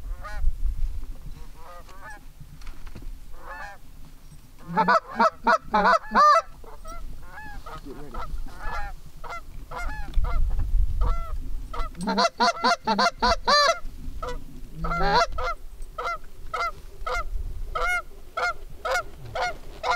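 Canada geese honking and clucking in quick, repeated calls, with two louder, denser flurries of calling about five and twelve seconds in.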